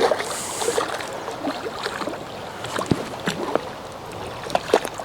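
Water splashing and dripping around a landing net as a hooked carp is netted and lifted from the water. There are scattered small knocks and splashes, with a brief hiss near the start.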